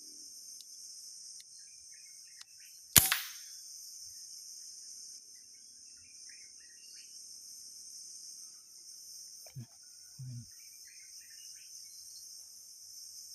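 A single sharp gunshot about three seconds in, fired at a green pigeon, over a steady high insect drone. Two soft low thumps follow about seven seconds later.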